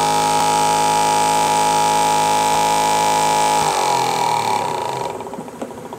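Brushed DC motor driving a second DC motor used as a dynamo, running with a steady hum-like whine. About four seconds in its regulator is turned down and the pair spins down, the whine falling in pitch and fading.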